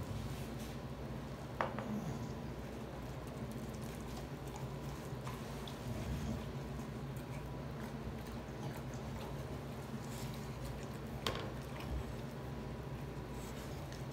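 An American bully dog eating pasta from a hand-held plate: wet chewing and lapping sounds. Two light clicks stand out, one about a second and a half in and one about eleven seconds in.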